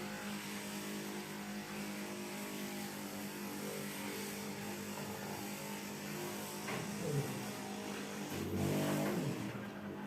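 A steady mechanical hum of many even tones, with short voice sounds about seven seconds in and again around nine seconds.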